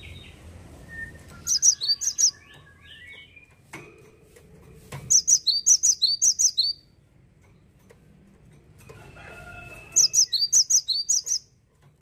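Cinereous tit (gelatik batu) singing in three bursts of quick, high, repeated two-note phrases, with fainter, lower calls between the bursts.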